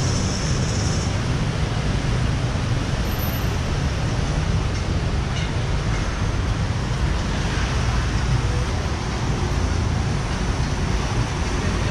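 Steady roadside traffic noise on a busy city road, the low rumble of passing cars, buses and tyres, with a brief hiss in the first second.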